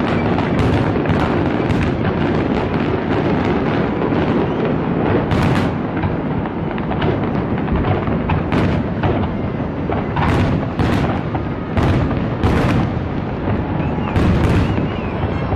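A large fireworks display going off: a dense, continuous rumble of launches and bursts, with sharper bangs standing out about once a second from about five seconds in.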